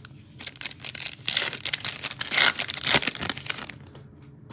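Foil trading-card pack wrapper being torn open and crinkled: a crackling, rustling burst from about a second in, lasting about two and a half seconds, then dying away.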